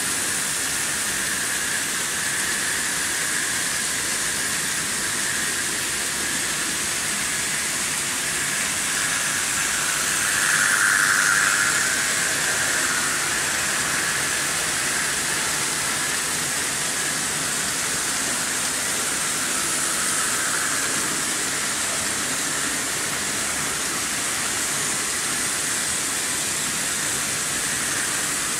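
Märklin H0 model trains running on metal M-track: a steady whirring hiss of motors and wheels, swelling louder for a couple of seconds about ten seconds in.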